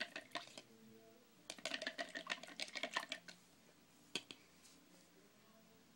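Faint runs of light, quick clicks and taps, like small hard objects being handled, with a single sharper click about four seconds in.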